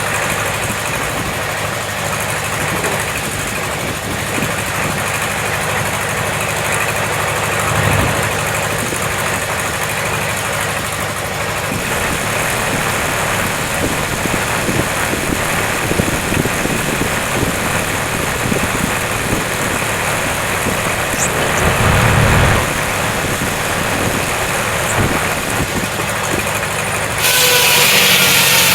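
Tractor engine running steadily, with a few clunks along the way. About 27 seconds in, the sound changes abruptly to a louder engine with more hiss.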